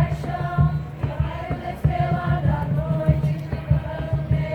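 A group of voices singing together in unison, a slow melody of long held notes, over a steady low rumble.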